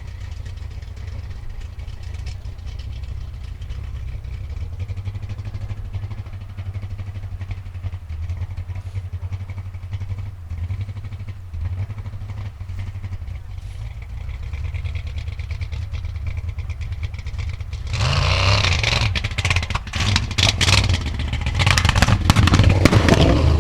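Engine of a Willys CJ5 formula offroad jeep running low and steady. About eighteen seconds in it opens up to full throttle, loud, with rapid cracks and knocks.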